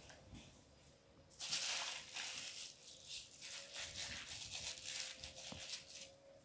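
Thin plastic sheeting crinkling and rustling as hands and arms move over it. It starts suddenly about a second and a half in, lasts roughly four and a half seconds and then stops.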